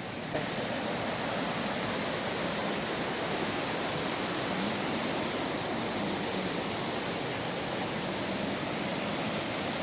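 Steady rushing of flowing river water, an even hiss with no change.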